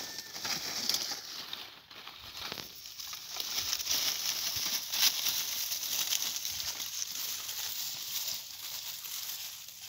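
Dry corn leaves and stalks crackling and crinkling irregularly as goats feed on them.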